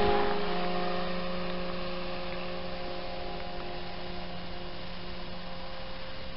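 Radio-controlled twin-engine DC-3 scale model's motors droning in flight, one steady pitched hum with overtones. It is loudest at the start and fades over the first couple of seconds, then holds steady as the plane flies off into the distance.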